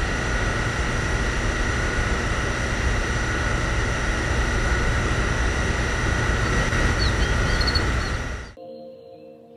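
Miniature DIY model engine running steadily, a dense mechanical noise with a low rumble and a constant high whine, cutting off suddenly near the end.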